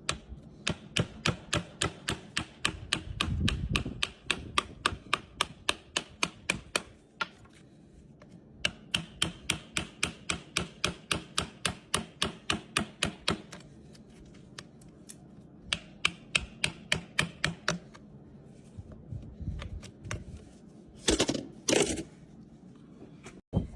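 A farrier's cutting tool trimming the overgrown, peeling frog of a horse's hoof in quick, even strokes, about three or four crisp clicks a second, in three runs with short pauses. Two louder knocks come near the end.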